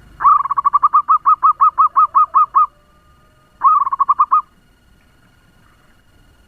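Zebra dove (perkutut) giving its fast staccato cooing call: a quick run of about fourteen notes over two and a half seconds, then, after a short pause, a shorter run of about six notes.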